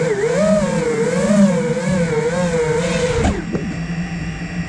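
Five-inch FPV quadcopter's brushless motors whining, the pitch wavering up and down with the throttle, heard from the camera mounted on the drone. About three seconds in comes a thump as the drone hits the ground, and the motors drop to a lower, steady hum.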